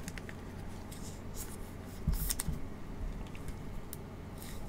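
Light scratchy rustles and clicks of thin plastic as a trading card is handled and slid into a clear sleeve and a rigid plastic top loader by gloved hands. A low knock and the busiest rustling come about two seconds in.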